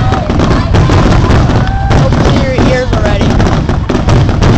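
Fireworks finale: a dense barrage of rapid bangs and crackling over a continuous low rumble, with short whistling pitch glides.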